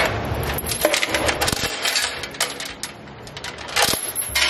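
Chain on a tubular steel stall gate rattling and clinking as it is unhooked and the gate swung open: a run of sharp metallic clinks, with louder clusters at the start and near the end.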